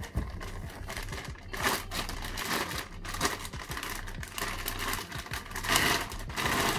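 Clear plastic wrapping crinkling and rustling as it is handled and pulled around a rifle lifted from its box, in uneven swells with the loudest near the end.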